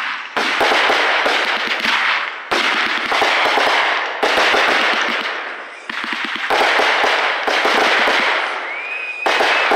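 Consumer aerial fireworks bursting one after another, about six times, each sharp report followed by a long crackling fizz as the glittering stars burn out. A thin whistle sounds near the end.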